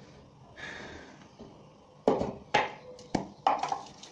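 Metal parts of a disassembled LPG regulator being handled on a wooden table: a brief scrape about half a second in, then four sharp knocks in the second half as the parts are set down.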